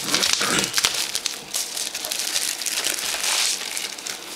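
Pink plastic bubble-wrap bag crinkling and rustling as it is pulled open and the device slid out, with a quick run of small crackles throughout.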